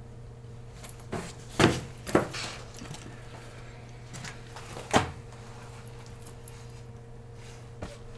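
A handful of sharp clicks and clatters, the loudest about one and a half, two and five seconds in, over a steady low electrical hum.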